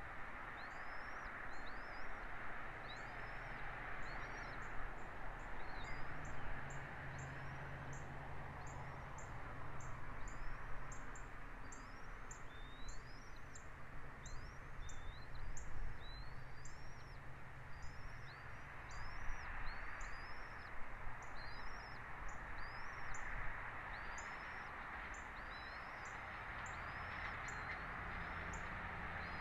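A bird chirping over and over, about two high, curving calls a second, over a steady rushing background noise and a low hum.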